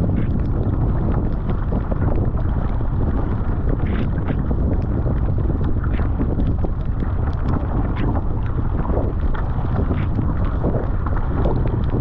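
Wind buffeting the microphone over water rushing and splashing along a Fenn Elite S surfski's hull, with the splash of the paddle blades entering and leaving the water on each stroke.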